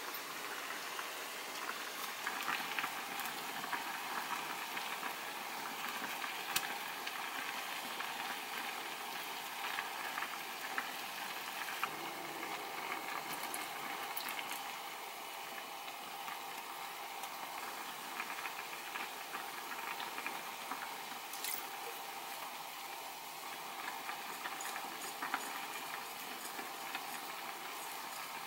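A pot of broth boiling hard on a gas stove: a steady bubbling and hiss, with a few sharp clicks scattered through it.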